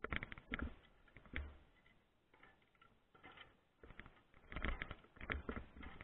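Irregular light clicks and knocks of metal antenna hardware being handled and fitted on a microwave dish, coming in small clusters and busiest near the end.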